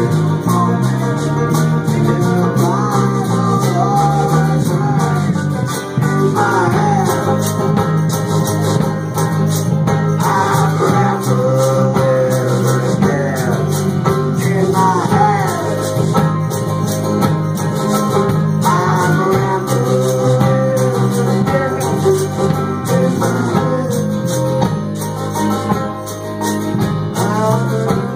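Folk-punk band playing live: loud strummed guitars and drums with a man singing over them.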